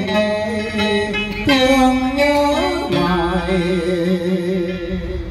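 A man singing a slow Vietnamese song into a microphone, holding long notes with a wavering vibrato.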